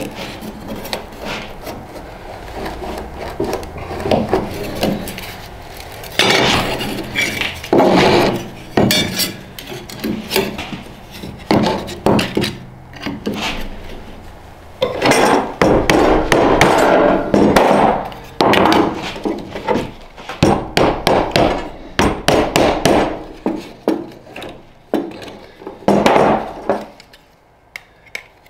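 Pliers and a hand tool knocking, clicking and scraping against a small sheet-metal disc on a wooden block as cut tabs in the metal are worked up and bent by hand, in irregular bursts of sharp taps and scrapes.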